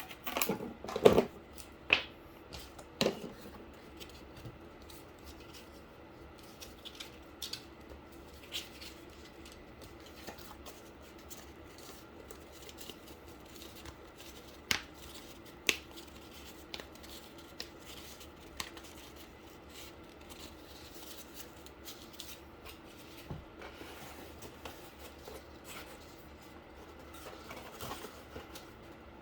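Handling sounds of cardboard and tape being worked by hand: a burst of sharp clicks and knocks in the first three seconds, then scattered light taps and scrapes over a faint steady hum.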